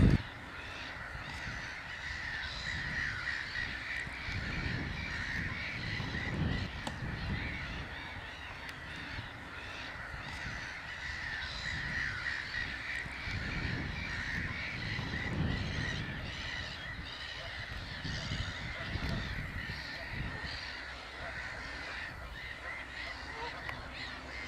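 A dense, continuous chorus of harsh calls from many birds at a wetland, with uneven gusts of low wind rumble on the microphone.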